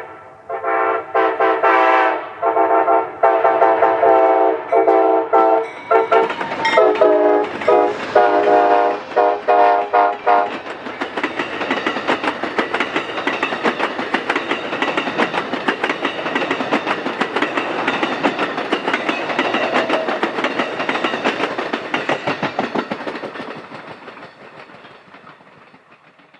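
A GE P42 locomotive's Nathan K5LA five-chime horn sounds a rapid string of short blasts, and the chord drops lower about six seconds in. After about ten seconds the horn stops and the passenger cars rumble and clickety-clack past on the rails, fading out near the end.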